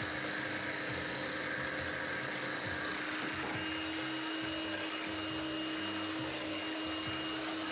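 Electric hand mixer running steadily, its twin beaters whisking a frothy liquid of beaten egg whites, milk and yeast in a glass bowl; a steady motor hum, with a faint higher whine joining about three and a half seconds in.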